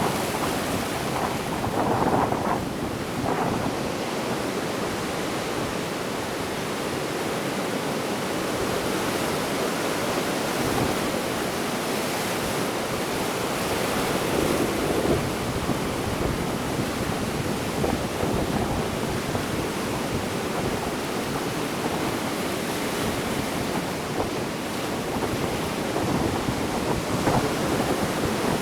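Ocean waves washing in continuously, a steady rushing noise that swells and eases. Sea wind buffets the microphone with a low rumble.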